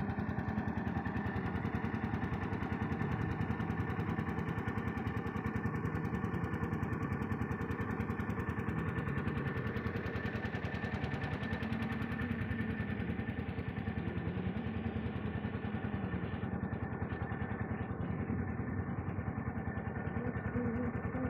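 JCB 3DX backhoe loader's diesel engine running steadily, its pitch rising and falling a little now and then.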